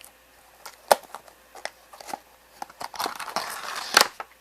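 Cardboard and plastic packaging of a Beyblade booster box being handled and opened: scattered clicks and taps, with a sharp snap about a second in. Near the end comes about a second of rustling and tearing, ending in a loud click.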